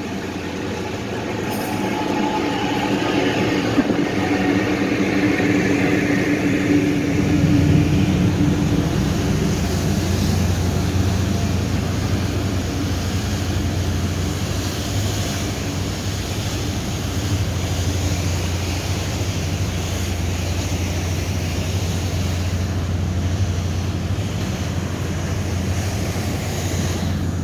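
Car ferry underway, heard from the open deck: a steady low engine hum with the rush of water and wind over it.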